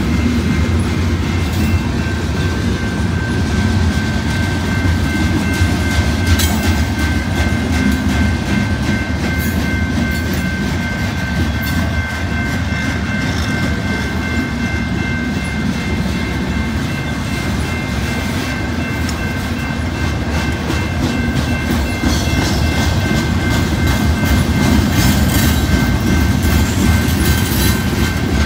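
Freight cars of a CSX mixed freight train rolling past: a steady low rumble with repeated wheel clicks, and a thin steady high whine over it from about a second in.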